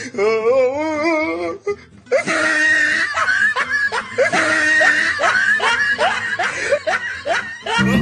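A laugh wavering up and down in pitch for about two seconds, then, after a brief break, loud music with a woman singing into a microphone.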